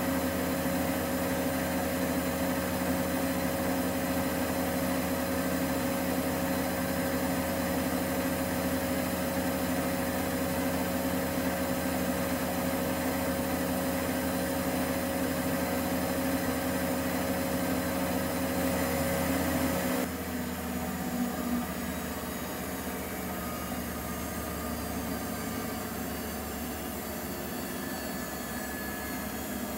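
Nortec Primus P6 commercial washing machine running, a steady motor hum with a whine over it. About twenty seconds in, the whine cuts off suddenly and the machine goes on more quietly.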